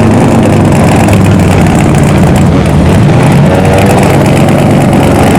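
Engines of cars rolling slowly into a car show, a steady low rumble with no hard revving.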